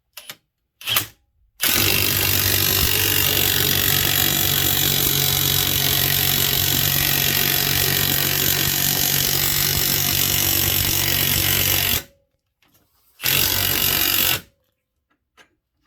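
Ryobi 18V One+ HP brushless high-torque 1/2-inch impact wrench hammering on a 5/8-inch bolt. It gives two quick blips at the start, then runs steadily for about ten seconds, stops, and fires one more short burst of about a second near the end.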